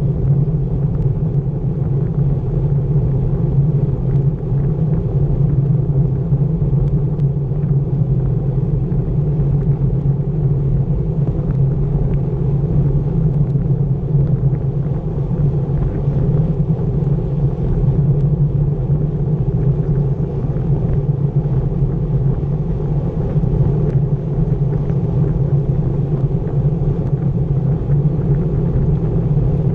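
Steady wind buffeting and road vibration rumbling on a bicycle-mounted action camera's microphone while riding at about 23 mph.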